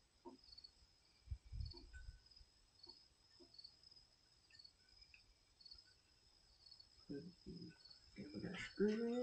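A cricket chirping faintly and evenly, a little under twice a second, over a steady high tone. There is a dull knock about a second and a half in and a few light clicks. A man's low voice mutters near the end and is the loudest sound.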